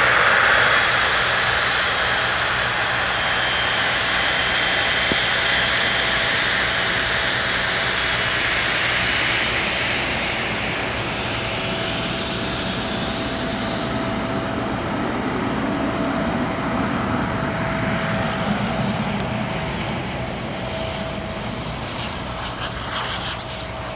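Boeing 777F freighter's two GE90 turbofans at departure thrust. The jet noise carries a steady whine and fades slowly as the aircraft moves away.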